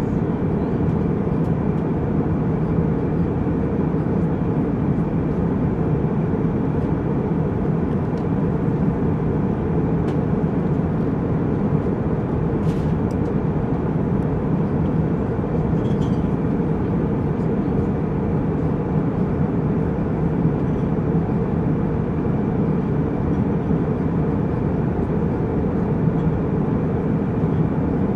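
Jetliner cabin noise in flight: a steady, even rush of engine and airflow noise, strongest in the low range. A couple of faint clicks come about midway.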